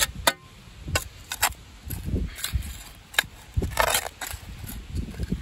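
Steel spade digging into rocky field soil: a series of sharp chops as the blade strikes dirt and stones, with a longer crunching scrape about four seconds in.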